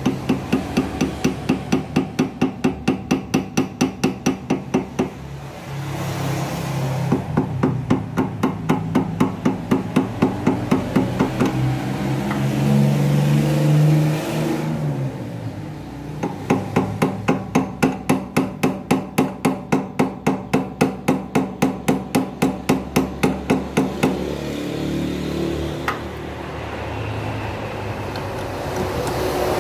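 Metal lathe at work on a piston in a four-jaw chuck, giving a fast, regular knocking of about five strikes a second. The knocking comes in three runs of several seconds each, with a steady low hum for a couple of seconds midway.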